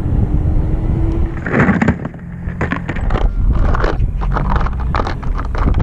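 Plastic lures and a plastic tackle box clicking and clattering as hands rummage through them, many quick clicks in the second half. Under it, a steady low rumble of wind on the microphone.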